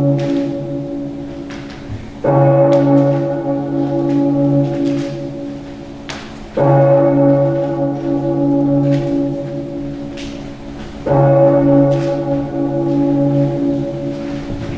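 A single large church bell tolling slowly: three strokes about four and a half seconds apart, each ringing on and fading until the next.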